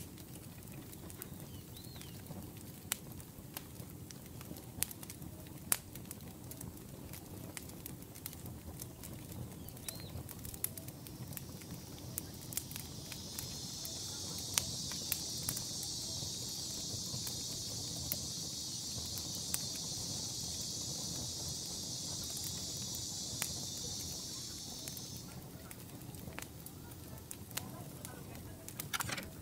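Kitchen knife cutting into a whole red sea bream on a wooden cutting board, scoring its side, with scattered sharp clicks and taps of the blade on the board. From about a third of the way in, a steady high-pitched buzz runs for roughly twelve seconds and stops abruptly.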